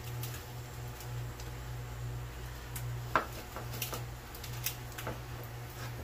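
One-handed bar clamps being fitted and tightened around a two-part sand-casting mold: scattered light clicks and taps from the ratcheting clamp triggers and the jaws meeting the mold, over a steady low hum.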